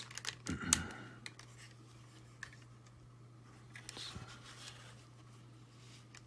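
Plastic clicks and light handling of a Transformers MP-30 Ratchet action figure as its parts are moved, with one sharp click a little under a second in (the loudest), then a few faint clicks and a soft rustle. A steady low hum runs underneath.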